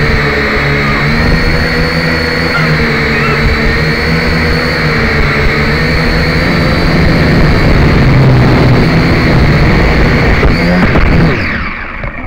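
Syma X5C quadcopter's small electric motors and propellers whining steadily, heard close up through its onboard camera. Near the end the whine slides down in pitch and cuts out as the quadcopter lodges in tree branches.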